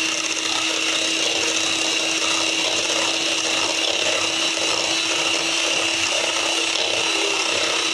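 Electric hand mixer running steadily with a constant whine, its twin beaters whisking raw eggs in a stainless steel bowl.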